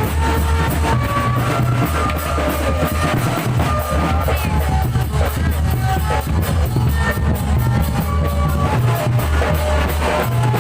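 Music with a drum kit and a heavy bass line.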